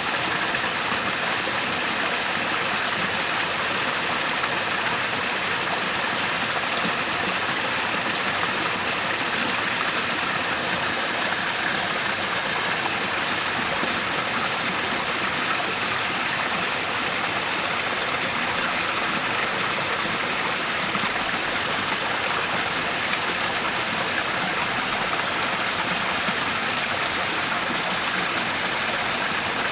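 Steady rushing of a waterfall: water pouring and splashing in an even, unbroken hiss with no pauses.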